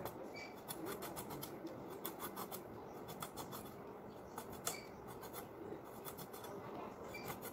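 Pointed gourd (potol) skin being scraped off against the iron blade of a boti, in quick runs of short, rasping scrapes.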